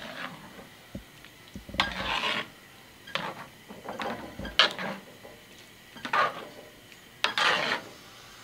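Metal ladle scraping and knocking against a large metal pan while thick lomi noodle soup is stirred, about six short strokes a second or so apart.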